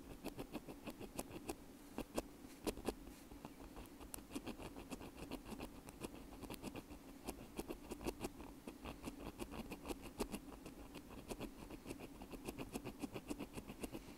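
Wooden ear pick scratching inside an earphone bud: a quick, uneven run of dry scratches and clicks, several a second.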